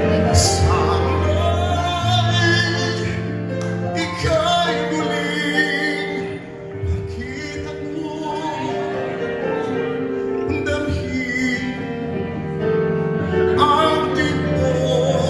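A man singing into a handheld microphone with long held notes, over instrumental accompaniment of sustained chords.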